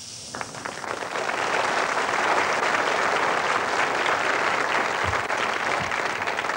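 Studio audience applauding, swelling over the first couple of seconds and then holding steady.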